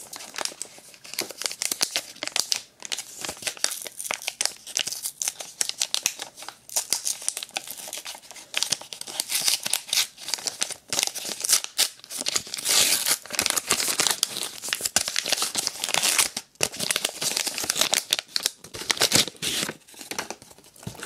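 Plastic wrapper of a pack of Pokémon trading cards being torn open and crinkled by hand, a dense run of irregular crackling and tearing.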